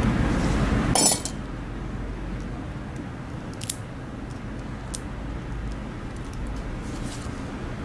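A low steady rumble cuts off with a loud clack about a second in, followed by a few sharp light clinks of small metal tools being handled on a silicone work mat.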